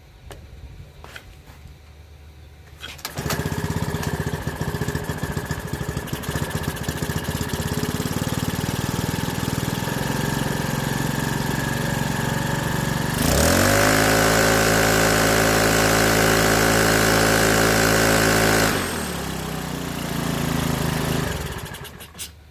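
Makita EB5300TH backpack leaf blower's four-stroke engine catching about three seconds in and idling. It then revs up sharply to a steady full throttle for about five seconds, drops back to idle and shuts off near the end. With its carburetor freshly cleaned, it runs up cleanly.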